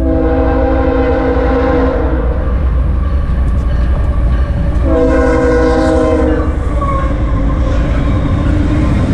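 BNSF ES44C4 locomotive's Nathan K5HL five-chime air horn sounding two long chord blasts of about two seconds each, a few seconds apart, then a brief short note. Under it runs the steady heavy rumble of the approaching intermodal train, which is passing close by near the end.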